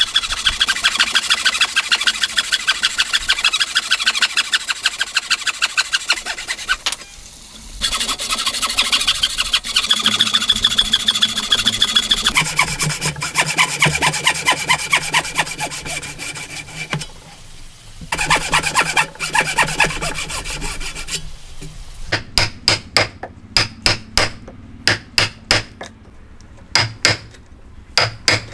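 Wood being cut by hand in rapid, even back-and-forth strokes, with two short pauses. Near the end the strokes give way to a series of sharp taps, about two a second.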